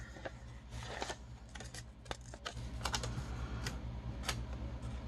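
A paper sticker sheet being handled and a sticker peeled off its backing paper: light paper rustling and crackling with scattered sharp ticks.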